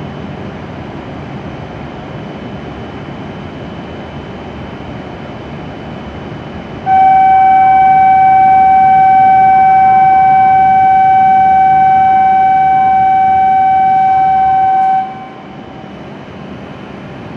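A loud, steady single-pitched signal tone sounds for about eight seconds over a steady background hum, starting and cutting off abruptly.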